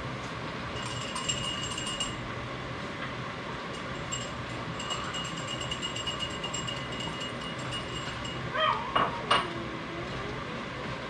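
Salmon frying in butter and oil in a skillet, crackling and spitting in two spells of rapid ticks, over a steady background hum. Near the end comes a brief, louder high sliding sound that falls and then rises.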